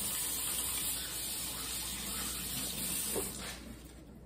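Kitchen faucet running, with water splashing over hands being rinsed in the sink; the water is shut off about three and a half seconds in.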